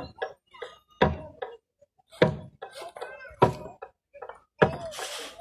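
Loud sharp knocks, about one every second and a bit, evenly spaced.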